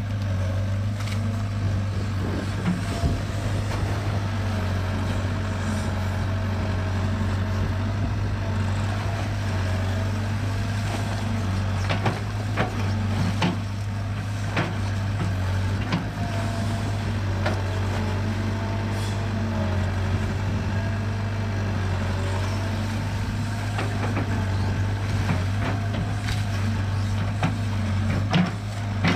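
Kobelco SK60-1 crawler excavator's diesel engine running steadily under load while the machine moves, with a whine that comes and goes and scattered knocks.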